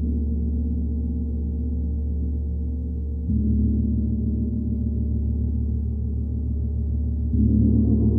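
A large gong struck twice, about 3 and 7 seconds in, each stroke swelling into a deep, sustained ring with a slow wavering shimmer, the previous stroke still sounding underneath.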